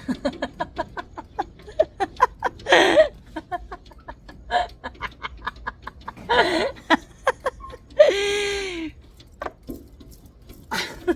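A domestic cat meowing, wanting attention or wanting to be let out: three calls, the longest one near the end. Under them runs a string of quick sharp clicks and taps.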